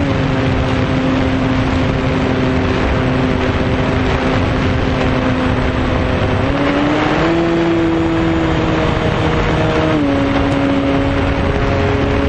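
Electric RC airplane motor and propeller running with a steady hum over loud rushing air noise. The pitch steps up about two-thirds of the way in as the throttle is opened, then drops back in two steps.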